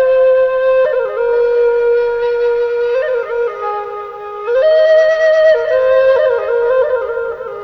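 Flute playing a slow melody of long held notes with quick ornamental turns between them, climbing to a higher phrase about halfway and growing softer near the end.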